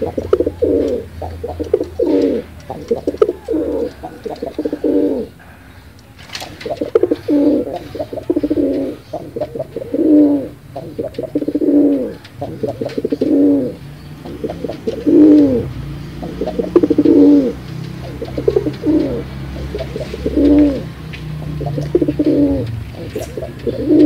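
Domestic pigeon cooing: a long run of repeated rolling coos in short phrases, with a brief pause about five seconds in.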